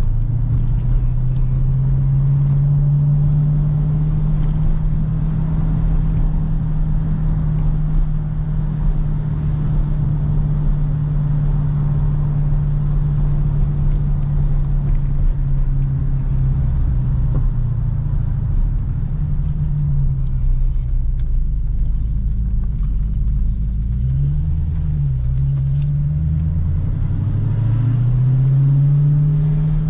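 Dodge Challenger SRT Hellcat's supercharged 6.2-litre V8 engine running at steady cruising revs, heard from inside the cabin. About two-thirds of the way through, the engine note falls away, dips briefly and climbs again, and it rises louder near the end as the car accelerates.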